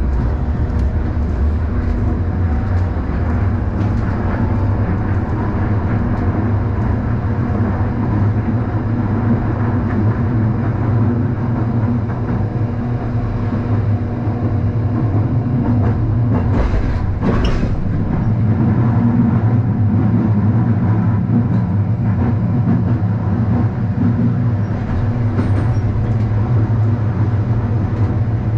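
Hakodate city tram running along the street, heard from inside the passenger car: a steady low hum with rolling noise from the rails. A brief, sharper noise cuts through about two-thirds of the way in.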